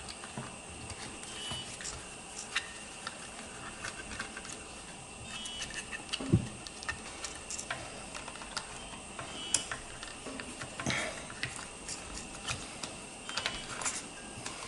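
Scattered light clicks and taps of small hand tools and plastic parts being handled while an RC loader's battery tray is loosened, with one louder knock about six seconds in.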